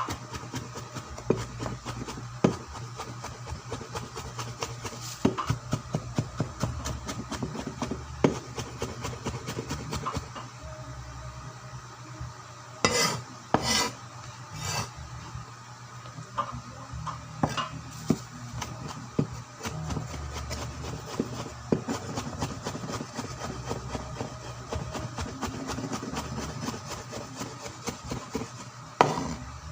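Kitchen knife rapidly mincing ginger on a wooden chopping board: a quick, uneven run of knocks, several a second, with three short, louder bursts about halfway through.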